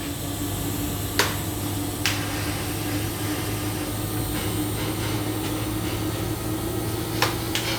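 A steady electrical machine hum with an even hiss, broken by a few sharp metallic taps or clicks: one about a second in, one about two seconds in, and two close together near the end.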